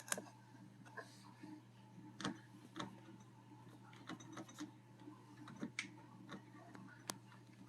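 Scattered light clicks and taps of equipment being handled, irregular and faint, over a low steady hum.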